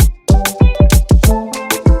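Background music: an Afrobeat-style track with a driving beat of deep kick drums under plucked and sustained instrument notes.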